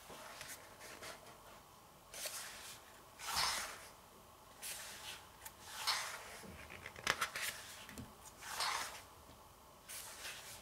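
Glossy pages of a photobook being turned by hand: a run of short papery swishes and flaps, about one a second.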